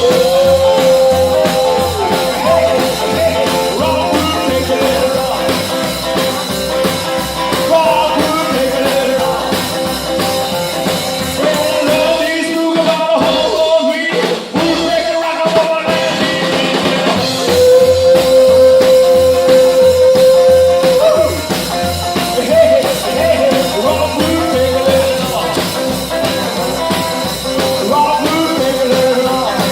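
Live rockabilly band playing an instrumental break: held, bending lead notes over a walking bass line and drums. The bass drops out for a few seconds around the middle before the full band comes back in.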